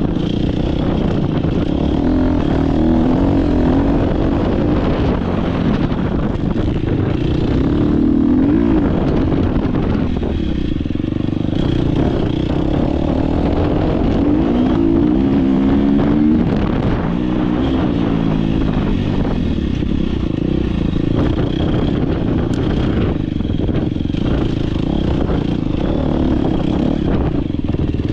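Dirt bike engine at racing pace, its pitch climbing and dropping again and again as the throttle is opened and closed through the turns.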